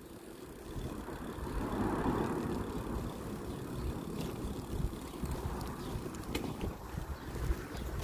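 Wind rushing over the microphone and road noise while riding a bicycle, swelling about a second in.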